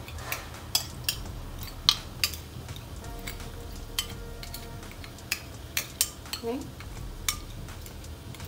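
Steel ladle clinking against a ceramic bowl and the rim of a pot: a dozen or so sharp, irregular clinks over a steady low hum.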